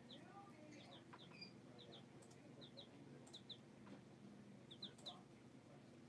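Young chicks peeping faintly, short high chirps mostly in quick pairs, every second or so, over a low steady hum.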